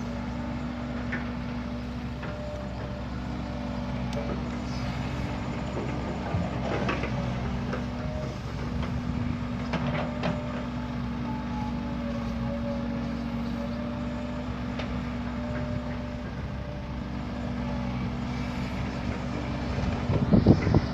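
Heavy diesel earthmoving machinery running steadily, with a higher whine that comes and goes over the engine note. Scattered light clicks, then a few loud knocks near the end.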